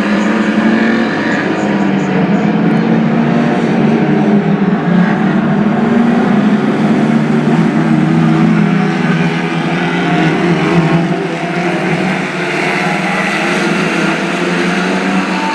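Several Lightning Rods oval race cars' engines running hard together, a continuous overlapping engine drone that rises and falls slightly as the cars circulate.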